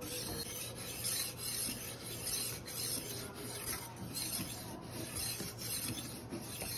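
Rolling knife sharpener's fine-grit disc rasping along the edge of a steel kitchen knife held at a fixed angle, rolled back and forth in quick strokes: honing the blade. A steady grinding hiss, broken by brief dips about twice a second as the stroke changes direction.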